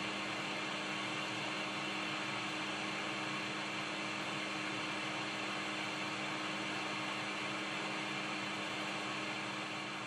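Hot air rework station blowing steadily while heating a chip off a phone logic board: an even rushing hiss from the air stream with a low steady hum from its fan.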